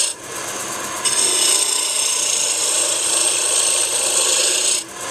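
Roughing gouge cutting a spinning wood blank on a wood lathe, a steady hissing scrape as it shapes a taper. The cut is lighter at first, comes back strongly about a second in, and eases off near the end.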